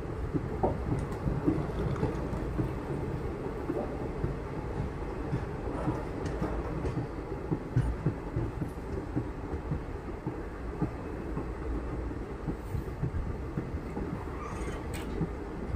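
Express train coaches running on the track: a steady rumble of wheels on rails with scattered rattles and clicks, heard from beside the coach.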